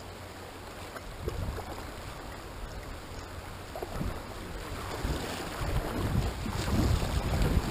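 Kayak paddle strokes splashing in fast-running creek water, with a few light knocks, and wind rumbling on the microphone; the water and wind noise grow louder over the last couple of seconds.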